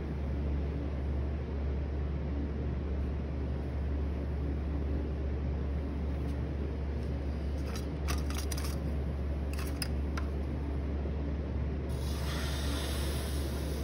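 Electric potter's wheel motor humming steadily, with a few light clicks about two-thirds through. Near the end a scraping hiss as the wheel head is scraped clean of wet clay slurry with a tool.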